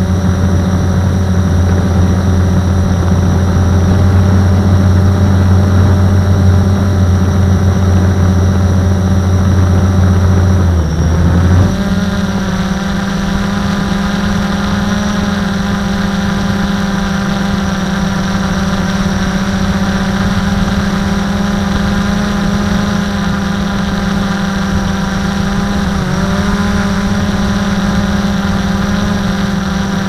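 Blade 350 QX quadcopter's electric motors and propellers running with a steady whirring drone. About eleven seconds in, a low hum drops out and the pitch shifts higher as the motors change speed, with a brief dip in pitch later on.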